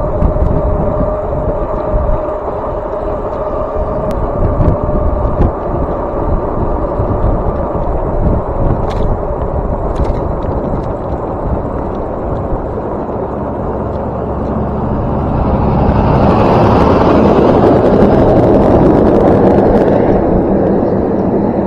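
Wind buffeting the microphone of a moving e-bike, with a steady whine that fades out in the first third. A louder rush of noise builds about two-thirds of the way through and eases off near the end.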